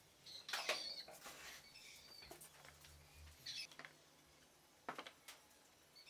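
Light knocks and scrapes of small wooden roof slats being handled and set on a wooden bird feeder. There is a quick cluster about half a second to a second in, then a few single taps.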